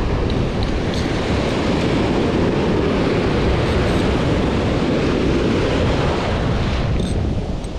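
Surf breaking and washing in the shallows, with heavy wind buffeting on the microphone; the noise eases a little near the end.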